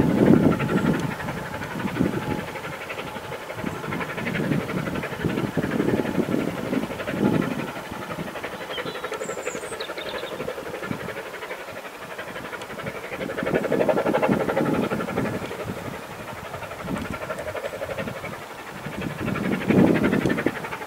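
Vale of Rheidol narrow-gauge 2-6-2 tank locomotive No.9 working its train along the valley side, heard from a distance: a steady run of exhaust beats and steam hiss that swells and fades in waves.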